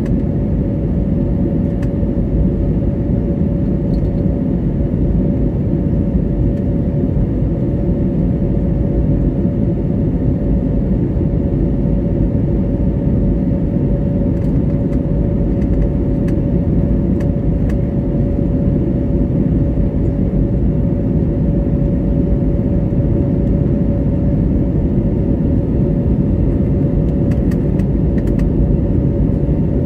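Airbus A320neo cabin noise during the climb after takeoff: a steady deep rumble of engine and airflow with a constant mid-pitched hum on top. The engines are Pratt & Whitney PW1100G geared turbofans.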